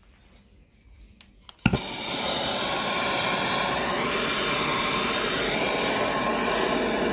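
Handheld gas torch lit with a sharp click about a second and a half in, then its flame burning with a steady hiss.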